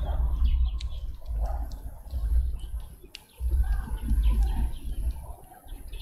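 Small birds chirping in short, sharp notes at a garden feeder, over a loud, uneven low rumble that comes and goes.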